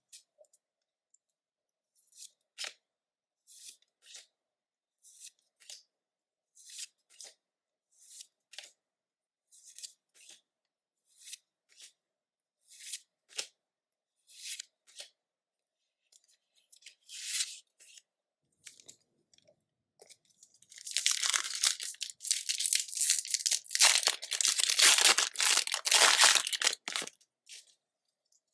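Pokémon trading cards being flicked through one at a time, a short papery snap about every three quarters of a second. About twenty seconds in, a foil booster pack wrapper is torn open and crinkled for several seconds; this is the loudest part.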